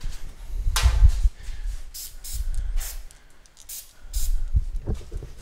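Aerosol can of penetrating oil spraying in short hissing bursts, the longest about a second in, over low knocks and rumble.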